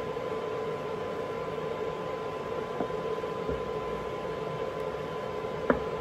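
A wooden spoon stirs a thick, foaming soap mixture in a stainless steel pot and knocks lightly against the pot twice. Underneath runs a steady hum with a faint high whine.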